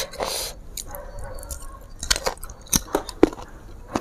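Mouth noises of chewing crunchy raw green mango, with a few short sharp crunches or clicks in the second half.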